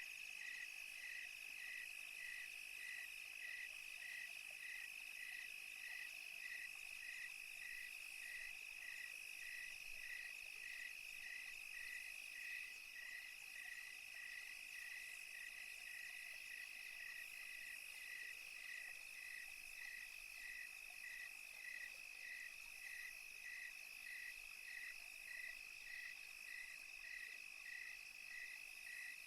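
Crickets at night: a steady high trill with an even, regular chirping on top, about three chirps every two seconds.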